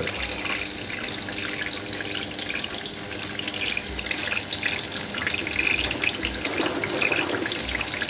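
LG direct-drive front-loading washing machine running: a steady sound of water flowing and splashing inside as the drum turns, with a few soft low thumps.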